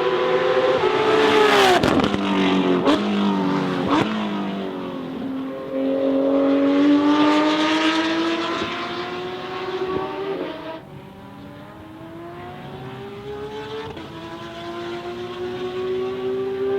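Porsche 992 GT3 RS's naturally aspirated flat-six through a Soul Performance exhaust, racing on track. In the first seconds the pitch falls steeply and sharp crackles pop on the overrun about two, three and four seconds in. It then accelerates with a long, steadily rising pitch until the sound drops away suddenly about eleven seconds in, followed by a quieter rising acceleration.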